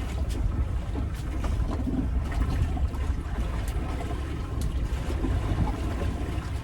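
Wind buffeting the microphone aboard a small fishing boat at sea, a steady low rumble with sea noise and scattered light clicks.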